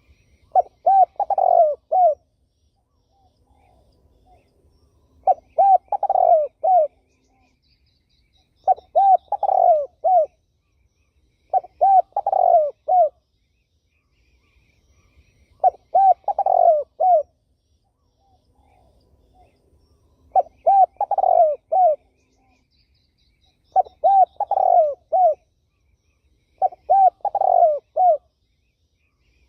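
A spotted dove (terkukur) cooing in a repeated song: eight phrases of three or four rolling coos each, one phrase every three to four seconds. Faint high chirps from another bird come twice between phrases.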